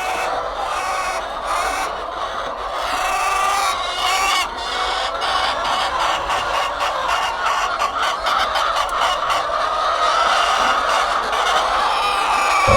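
A flock of hens clucking steadily, many birds' calls overlapping.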